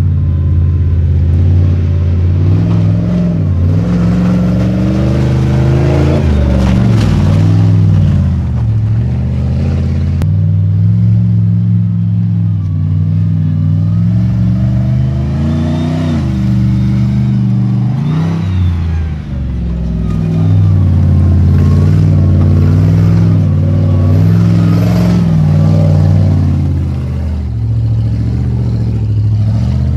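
Ultra4 off-road race car engine revving hard under load, its pitch rising and falling again and again as the car works up a muddy track.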